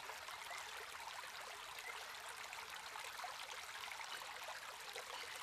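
Faint, steady trickling water.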